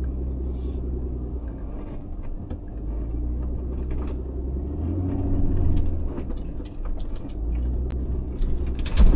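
ProMaster van crawling over a rough, rocky dirt road: a steady low engine and road rumble with scattered clicks and knocks, and a heavier thump near the end.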